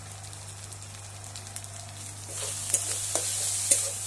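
Spiced onion masala sizzling in oil in an aluminium kadai. About two seconds in, a steel spatula starts stirring and scraping it against the pan, with a few sharp clicks, and the sizzle gets louder as the masala is fried down.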